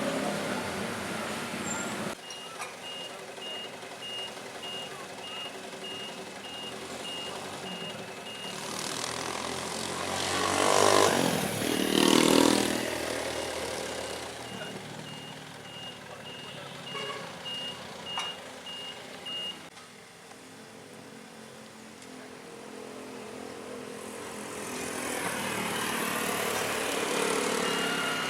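A reversing alarm on road-works machinery beeps in a steady run of short high beeps over engines running. A vehicle passes close and loud about ten to thirteen seconds in. The beeping stops a little before the twenty-second mark and starts again briefly near the end.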